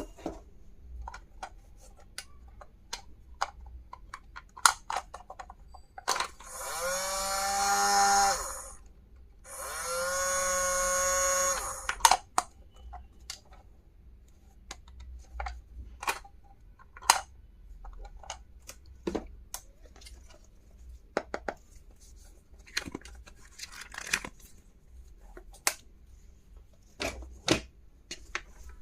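Light clicks and taps of plastic stationery being handled, with a small battery-powered motor whirring twice, each for about two seconds, its pitch rising as it spins up and then holding.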